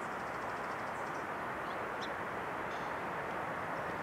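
Steady, even outdoor hiss with small birds chirping briefly: a quick run of chirps near the start, then a couple of single calls later on.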